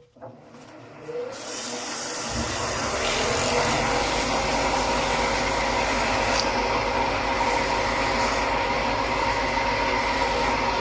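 Oneway 2436 wood lathe starting up after a brief stop, about two seconds in, and then running steadily in reverse, with 800-grit sandpaper rubbing on the spinning oak workpiece.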